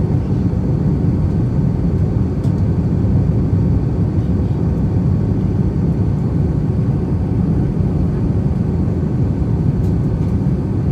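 Steady cabin noise inside an Airbus A319-131 in flight: the even, low-pitched rush of airflow and the hum of its IAE V2500 engines, heard from a window seat over the wing.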